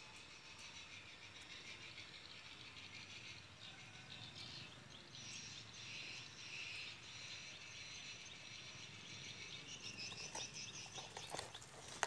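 Faint outdoor ambience of insects chirping, with some bird calls. Near the end come rustles and light knocks as leaves and branches are brushed.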